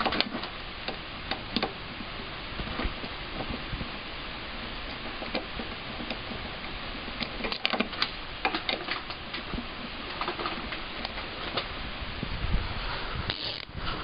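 Irregular metal clicks and clinks of a hand socket wrench being turned on the lug nuts of a Honda TRX70 quad's wheel, running the nuts on but not yet tight, over a steady background hiss.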